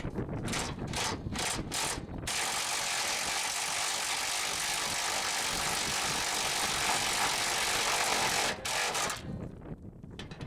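Hand ratchet wrench working a fastener: a few quick back-and-forth strokes, then about six seconds of fast continuous ratcheting that stops abruptly, followed by a few more short strokes.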